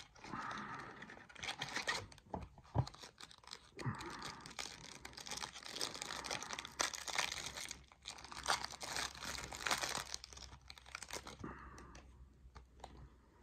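Clear plastic wrapping on trading card packs being torn open and crinkled by hand, a crackling rustle with a few sharp clicks that dies down near the end.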